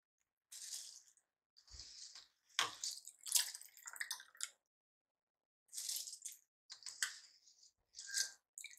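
Spiced biryani water with mutton at a hard boil in a pressure cooker, bubbling and spluttering in irregular bursts.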